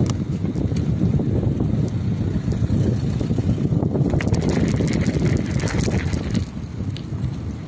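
Bicycle riding along, with a steady low rumble of wind on the microphone and tyres rolling over paving. A gritty crackle of tyres on gravel runs through the middle, easing off on smooth asphalt near the end.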